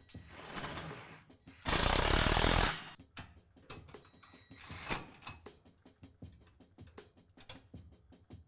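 Cordless drill-driver driving a screw into a metal bracket. It runs in one loud burst of about a second, with shorter, weaker runs before and after.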